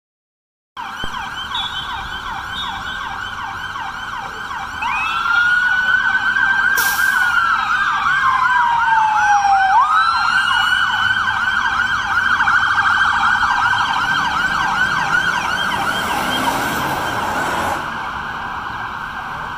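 Sirens of an ambulance and its police SUV escort sounding together, several fast yelping cycles overlapping. About five seconds in a louder siren joins, wailing slowly up, down and up again, with a sharp click about two seconds later. The loudest siren drops away near the end.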